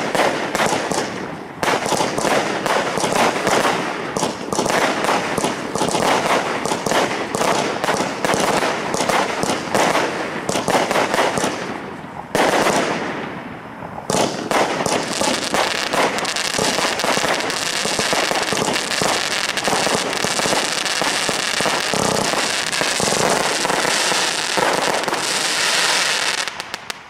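A Dynamic Fireworks 'Optimum' firework cake firing. For about twelve seconds it gives rapid launch thumps and bursting shells. Then comes one loud burst that dies away, followed by dense unbroken crackling that stops abruptly shortly before the end.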